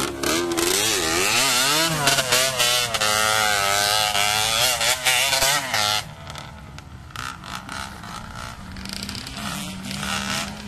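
Two-stroke Yamaha DT dirt bike engine revving up and down close by, its pitch rising and falling repeatedly. About six seconds in it changes abruptly to a quieter, more distant engine running at a steadier note.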